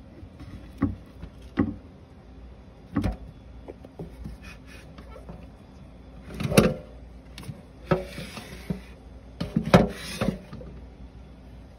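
Produce being handled in a colander: irregular knocks and clunks, the loudest a little past the middle and again near the end, with a brief hiss of noise between them.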